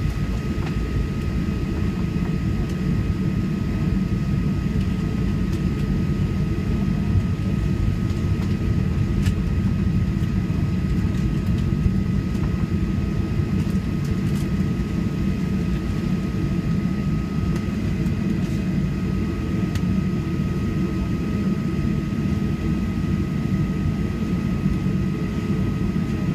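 Steady cabin rumble of a Boeing 737-800 on the ground before takeoff, its CFM56 engines at idle, with a thin steady whine running through it.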